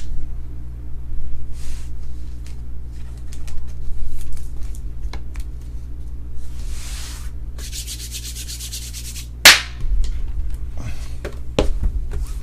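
Trading cards and their packaging being handled: rubbing and sliding scrapes with small clicks, a longer rasping stretch after about six seconds, and one sharp, loud swish at about nine and a half seconds. A steady low hum runs underneath.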